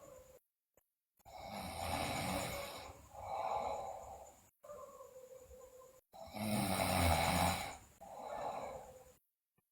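A girl snoring in her sleep: about five snoring breaths in a row with a low buzz, the loudest about two thirds of the way through. One breath, around the middle, carries a faint whistling tone that falls in pitch. The sound drops out to dead silence briefly near the start and again near the end.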